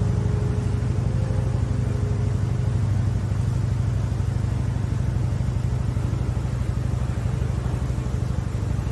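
Ferry boat's engine running steadily under way, a low drone with a fast, even throb.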